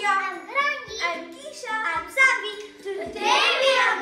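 A group of children singing together in chorus, over a low beat that comes about once a second.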